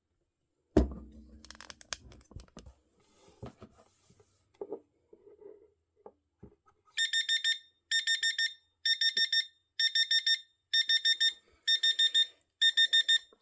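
Cheap wireless-charger alarm clock's alarm going off about seven seconds in: a high electronic beep in quick groups of four, repeating about once a second. Before it there is a single loud thump near the start and a few light handling clicks.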